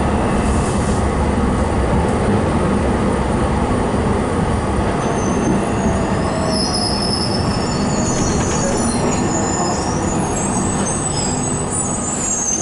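Fiat Ferroviaria 4900-series tram heard from inside, running steadily over the rails with a continuous rumble. From about five seconds in, high-pitched wheel squeal wavers on and off until near the end.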